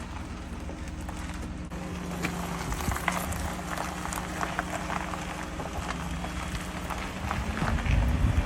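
Dodge camper van driving: steady engine and road noise with scattered small rattles and clicks. Near the end the engine note rises and gets louder.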